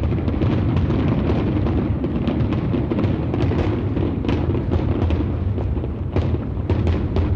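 Fireworks going off: irregular sharp pops and crackles over a steady low rumble.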